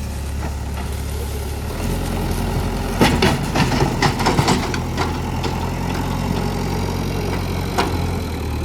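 Diesel engine of a JCB 3DX backhoe loader running, getting louder about two seconds in. From about three to five seconds in comes a rapid burst of sharp knocks and clatter, with one more knock near the end.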